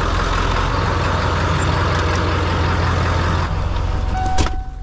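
1996 Ford F350's 7.3 Powerstroke V8 turbo-diesel running steadily just after a cold start that only caught on ether, which the owner finds weird. About four seconds in a truck door thuds shut with a short steady beep, and the engine then sounds muffled from inside the cab.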